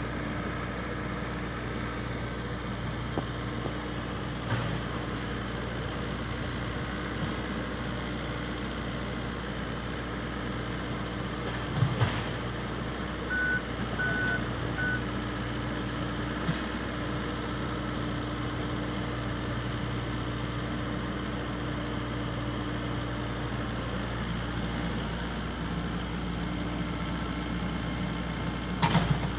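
Excavator's diesel engine running steadily. Three short high beeps come a little before the middle, and a few sharp knocks sound at about twelve seconds and again near the end.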